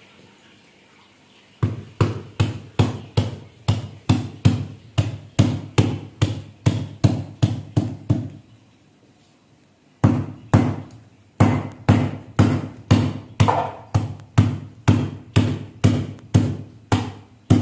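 Giloy stems being chopped and pounded on a stone counter: steady, evenly spaced strikes, between two and three a second. They come in two runs with a pause of under two seconds between them.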